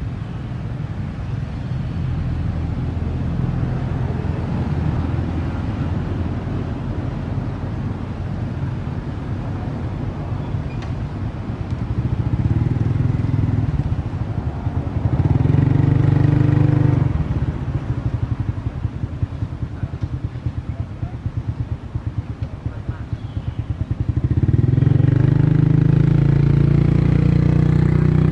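A motor engine running steadily with a low drone. It grows louder about halfway through and again near the end.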